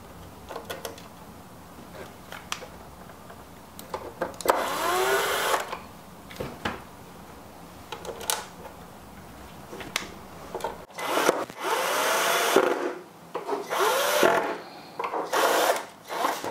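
Electric screwdriver driving machine screws into a metal casing in several short runs, each with a whine that rises as the motor spins up. Small clicks of screws being handled come between the runs.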